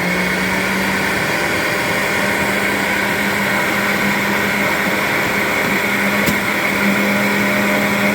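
Hamilton Beach centrifugal juice extractor running steadily at full speed while it juices orange pieces: a loud, even motor hum with a rushing noise over it.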